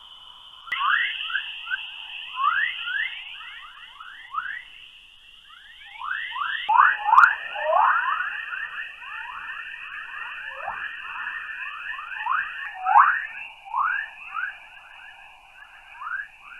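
Space radio or plasma-wave recording from a spacecraft, played back as sound: a dense stream of short, falling whistling chirps over a steady high hiss, the hiss dropping slightly in pitch about seven seconds in.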